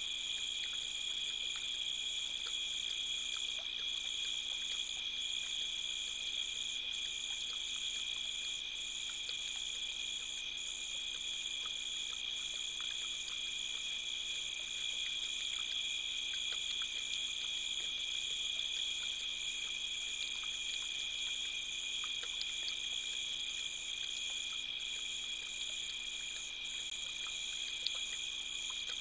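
Night chorus of crickets: a steady, high-pitched trilling at several overlapping pitches that never breaks.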